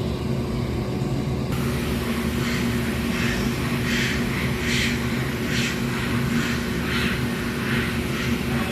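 A steady machine hum with two fixed tones. About a second and a half in, a hiss joins it, with a run of short hissing strokes that come a little under once a second.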